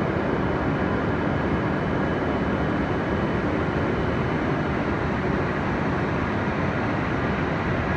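E5 series Shinkansen train pulling slowly out of the platform: a steady rush of running noise, with a faint high steady tone through the first half.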